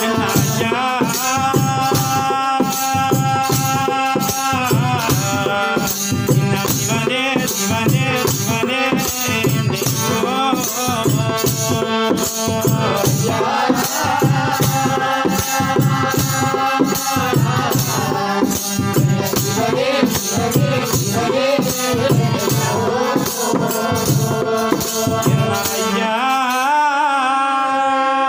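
Baduga devotional bhajan: singing over a steady beat of percussion with a rattle-like shaker. Near the end the percussion drops out and a held note carries on.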